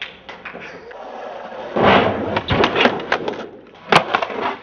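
Skateboard on concrete: wheels rolling and the wooden deck clacking and slapping down, in a run of sharp knocks. The loudest hits come about two seconds in, and there is a single sharp crack near the end.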